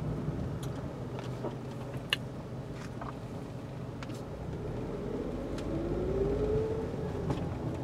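Car cabin noise while driving: a steady low engine and road rumble, with a rising tone and a slight swell in level from about five to seven seconds in, as when the car picks up speed.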